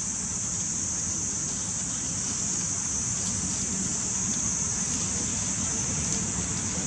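Steady outdoor background noise: a continuous high-pitched hiss with a low rumble beneath it, with no distinct events.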